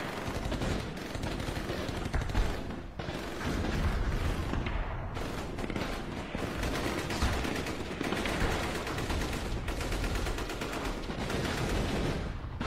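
Dense, continuous gunfire: rapid shots and machine-gun bursts running together like a firefight, with one louder crack about two seconds in.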